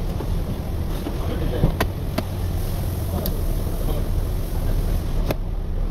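A few sharp plastic clicks as a trim tool pries along a Volvo V60 door panel, working its retaining clips loose, over a steady low rumble.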